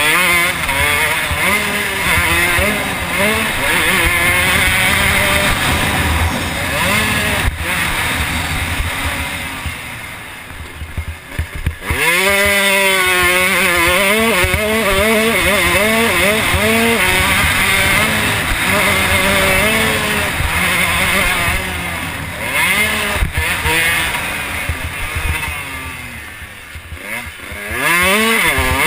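Motocross bike engine recorded from an on-board camera, revving up and down through the gears while racing. Twice, about ten seconds in and again near the end, the throttle shuts off and the engine falls away before picking back up hard.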